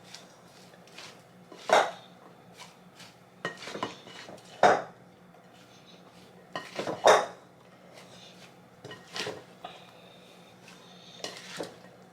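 Kitchen dishes and utensils clinking and knocking: a handful of separate sharp knocks, three of them clearly louder, with lighter clatter in between.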